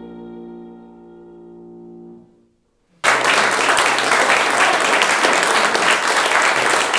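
Violin and piano holding a final chord that fades away over about two seconds. After a moment of silence, an audience breaks suddenly into loud applause, which is the loudest sound.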